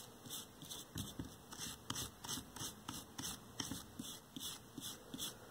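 Brush scrubbing the gunk-coated copper windings of a vacuum-tube TV's deflection yoke wet with denatured alcohol: faint, irregular scratchy strokes, a few a second.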